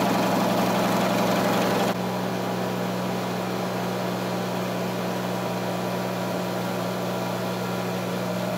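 Electric air compressor running steadily under load as it pumps up its tank, a constant low hum. About two seconds in the sound steps down abruptly in loudness, then runs on evenly.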